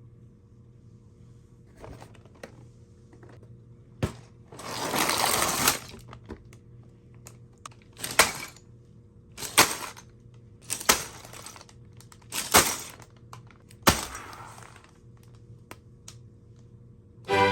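Handling of a LEGO set and its packaging: about a second of plastic or cardboard rustling, then about six sharp clicks and knocks spaced roughly a second or so apart.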